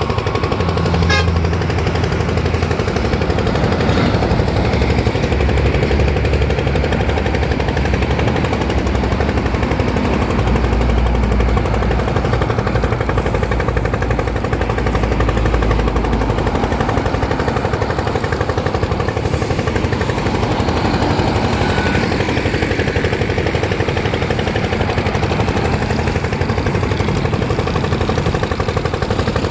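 Diesel truck engine running close by, a loud, steady, rapid clatter, over the noise of heavy trucks passing on the highway.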